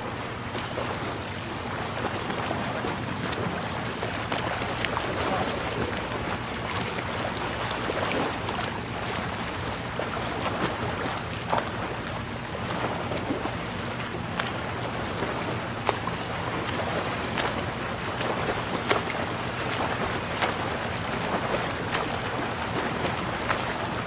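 Outrigger boat under way: its engine drones steadily while water rushes along the hull and wind buffets the microphone.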